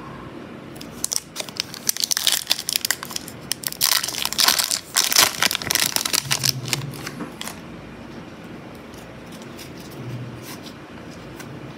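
Foil wrapper of an Upper Deck hockey card pack crinkling as it is pulled open by hand, a dense crackle that is loudest in the middle and dies away after about seven seconds.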